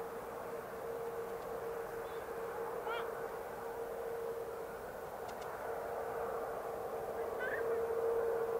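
Boeing 787-9's Rolls-Royce Trent 1000 engines running at taxi power: a steady hum with a whine held on one pitch. A bird chirps twice over it, about three seconds in and again near the end.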